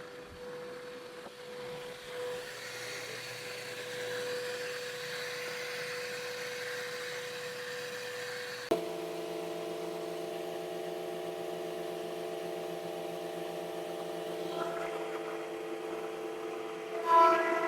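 Electric workshop machine motors running: a steady whine, then a click about nine seconds in as a second, deeper hum with several tones takes over, and a louder start-up near the end.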